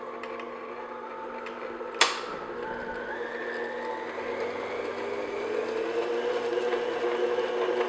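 Electric stand mixer running on low speed, its flat beater turning cake batter with flour and soaked fruit in a stainless steel bowl: a steady motor hum. A sharp click comes about two seconds in, and the motor's pitch rises slightly about halfway through.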